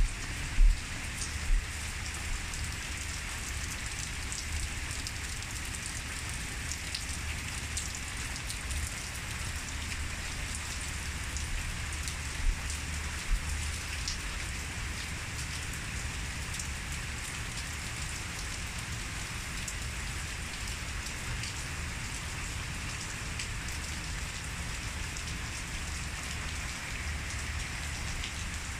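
Steady rain falling, an even hiss with fine scattered drop ticks. A few short low thumps come in the first two seconds and again about twelve seconds in.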